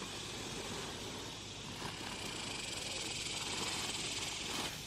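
Faint, steady high-pitched hiss, getting slightly louder toward the end.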